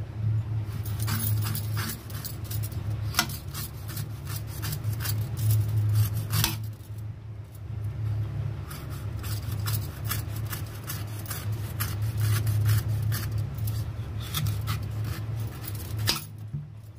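Large kitchen knife cutting into the husk of a tender coconut, shaving off slivers: irregular sharp cuts and scrapes, many in quick succession, with a short lull a little after six seconds, stopping about a second before the end. A steady low hum runs underneath.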